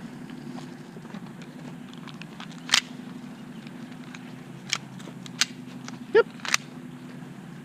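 About five scattered single sharp pops from airsoft guns firing, over a steady low hum.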